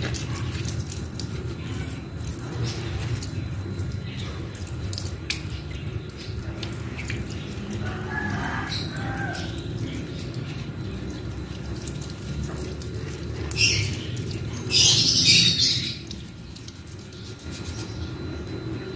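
Water from a garden hose running and splashing over a plant stem as it is rinsed and scrubbed, with two louder hissing bursts about two-thirds of the way through.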